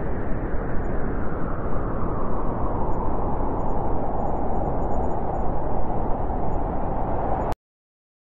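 Storm wind blowing hard through pine trees, with rain: a steady, loud rushing that cuts off suddenly near the end.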